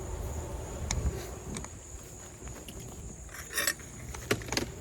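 Light clicks and knocks from handling wooden beehive equipment, with a short scraping hiss a little past halfway and two sharper knocks near the end, over a faint steady high insect drone.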